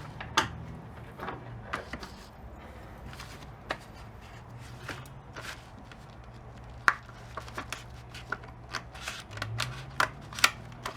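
Irregular small clicks and crackles of hands handling a packet of self-adhesive Velcro dots, over a faint low hum.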